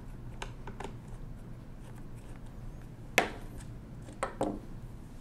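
Small metal clicks of a screwdriver backing a screw out of the front of a 1920s Monroe mechanical calculator, with one sharp click about three seconds in and a few quicker clicks just after four seconds as the screw is taken out.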